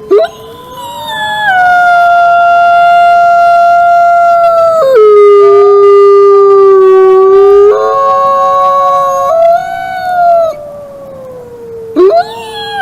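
Wolf howling: one long howl that drops abruptly to a lower pitch partway through, jumps back up, then slowly slides down and fades. A new howl starts near the end.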